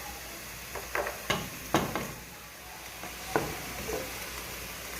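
Food sizzling in a frying pan as it is stirred, with a handful of sharp knocks of the utensil against the pan, most of them in the first two seconds.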